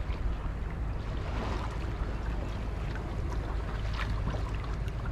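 Water rushing and splashing against the bow of a small wooden sailboat under sail, over a steady low rumble of wind. Louder splashes come about a second and a half in and again about four seconds in.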